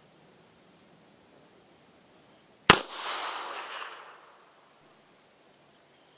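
A single shot from an M1898 Rast & Gasser revolver firing its 8mm Gasser cartridge, about two and a half seconds in, with a rolling echo that dies away over about a second and a half.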